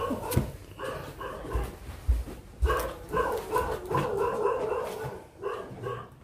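A dog whining and yapping in a string of short high-pitched cries, with a few dull low thumps in the first seconds.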